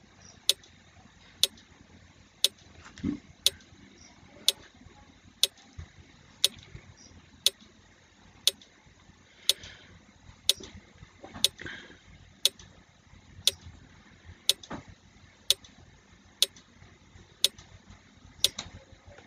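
Countdown timer ticking like a clock, one sharp tick about every second, counting down the seconds left to answer.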